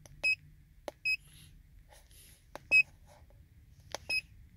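Autel MaxiTPMS TS408 handheld TPMS tool giving four short, high beeps as its buttons are pressed, each beep right after a button click. The third beep is the loudest.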